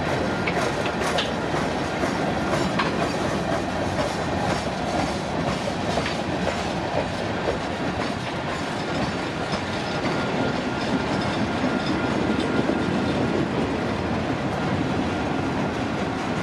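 Freight train cars rolling past with a steady rumble of steel wheels on rail, with scattered clicks and clacks from the wheels.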